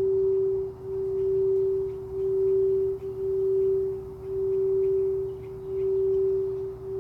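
A singing bowl sounding one steady, pure tone, its loudness swelling and dipping about once a second.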